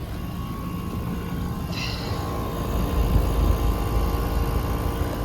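Outdoor air-conditioning condenser unit running, its fan and compressor giving a steady hum with a whooshing rush of air, with a short hiss about two seconds in. The unit runs but isn't cooling properly because its condenser coil is plugged.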